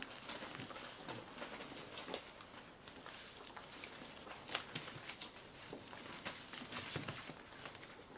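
Pembroke Welsh Corgi mother and puppy scuffling on newspaper: irregular paw scrapes and paper rustles, with faint snuffling and licking.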